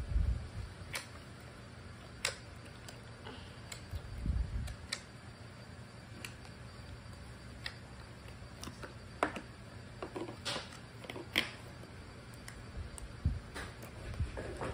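Thick slime being poked, kneaded and stretched by hand in plastic tubs: scattered sharp clicks and small pops, about a dozen, with soft low thumps near the start and again about four seconds in.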